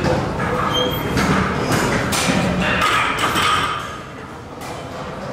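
Irregular thuds and knocks of gym equipment, several a second, growing quieter about four seconds in.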